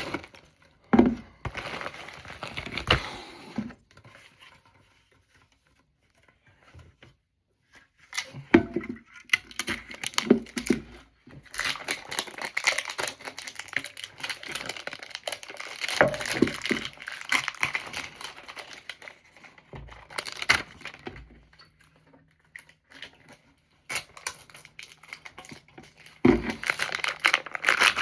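Packaging being handled while a cologne is unboxed: irregular crinkling and tearing of paper and wrapping, with a lull of a few seconds about four seconds in.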